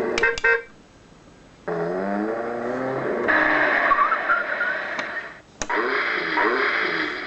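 Chicco My Little Driver toy steering wheel playing its electronic sounds through its small speaker: a few quick beeps, then a short jingle, then a car driving sound effect. Sharp clicks come twice near the end.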